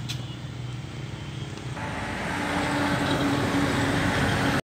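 A motor running with a steady hum, growing louder from about two seconds in, then cut off abruptly.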